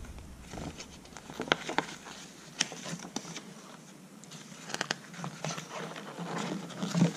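Paper pages of a small instruction booklet being handled and turned, giving scattered soft rustles and crinkles.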